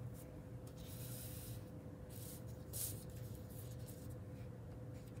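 A plastic ruler and heavy paper brushing and sliding on a tabletop as the ruler is lined up against the paper's edge: a few short soft swishes, over a faint steady hum.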